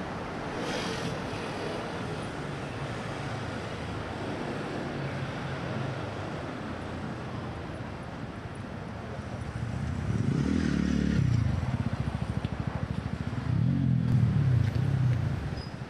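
Road traffic on a busy multi-lane city street: a steady hum of passing cars, with two vehicles going by close, their engines swelling and fading about ten seconds in and again near the end.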